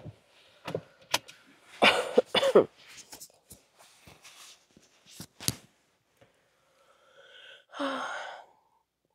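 Scattered knocks and clicks of things being handled, the loudest about two seconds in, then a brief sound of a person's voice near the end.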